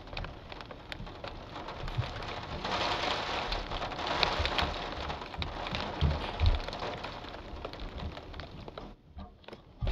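Steady rainfall hiss that swells louder for a couple of seconds about three seconds in, then eases, with a few low thuds around six seconds.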